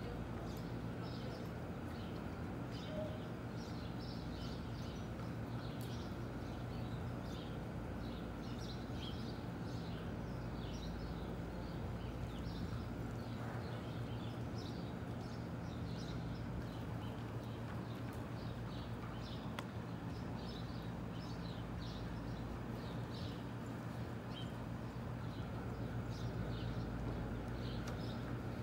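Horses' hooves on the soft sand footing of an indoor arena as several ridden horses walk and trot past, over a steady low hum.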